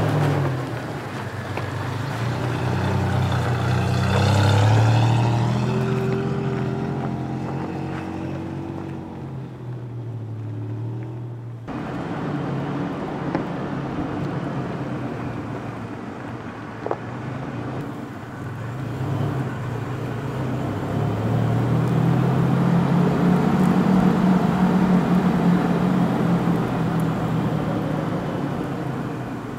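Toyota pickup truck driving on a dirt road: steady engine and road noise, the engine note drifting up and down and rising and getting louder past the middle. There is a sudden change about twelve seconds in.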